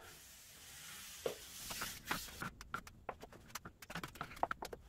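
A wide putty knife working drywall tape and joint compound along a wall seam: a faint scraping hiss at first, then a run of quick small clicks and scrapes as the blade is pulled along.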